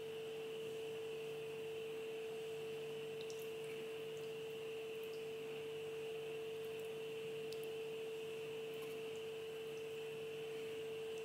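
Steady, faint hum at one unchanging pitch, with a few light ticks over it.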